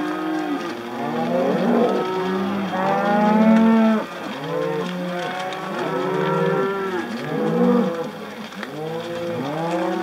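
A herd of beef cattle on a drive mooing, many animals calling at once in overlapping, drawn-out moos. The loudest calls come about three to four seconds in.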